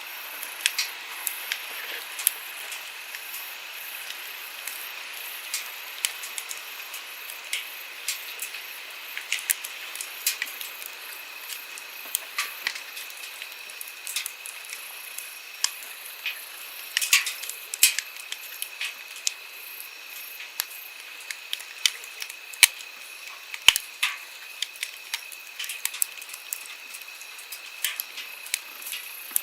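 Wood campfire crackling, with sharp, irregular pops over the steady rush of a flowing stream.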